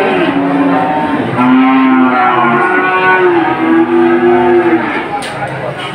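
Cattle mooing: a short low near the start, then a long drawn-out moo lasting about three seconds.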